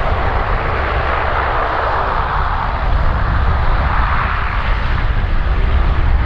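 Lockheed C-130H Hercules's four Allison T56 turboprop engines running, a loud steady propeller drone that swells a little midway.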